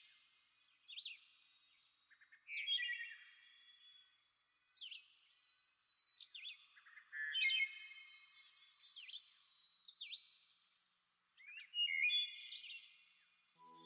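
Birds singing: short chirped and whistled phrases with brief pauses between them, every second or two.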